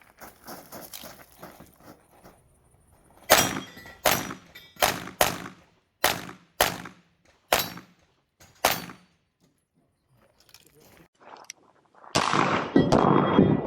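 Handgun shots fired in a practical-shooting stage: about eight sharp shots in quick, uneven strings, a few tenths of a second to a second apart. Near the end a loud, steady rushing noise sets in.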